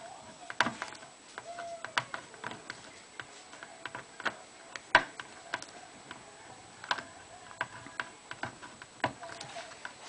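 Victorinox Swiss Army knife can opener levered stroke by stroke around the rim of a tin can, cutting the steel lid: a string of irregular sharp metallic clicks, roughly one to two a second, the loudest about five seconds in.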